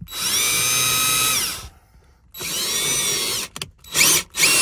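Handheld power drill with a 3/8-inch bit drilling a hole into a dash panel. It runs twice for about a second or more each time, whining up to speed and winding down, then gives two short trigger pulses near the end.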